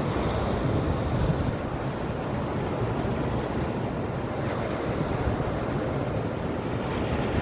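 Stormy sea surf washing and breaking in a steady rush, with wind buffeting the microphone.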